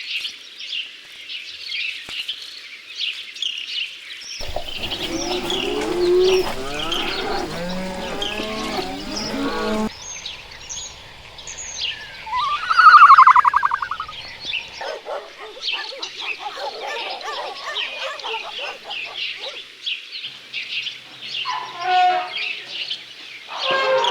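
Small birds chirping steadily throughout, with other farm animals calling over them: a run of pitched calls from about four to ten seconds in, and one loud, short call a little after halfway, the loudest sound here.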